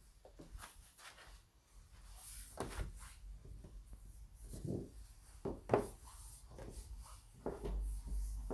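Faint handling noise of a phone held in the hand: scattered soft taps, rubs and clicks, the sharpest a little over halfway through.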